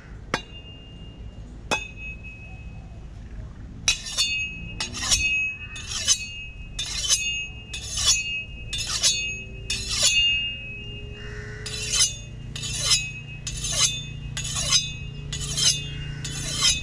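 A chopping blade striking a coconut. Two sharp strikes, then from about four seconds in a steady run of about one a second, each with a short metallic ring.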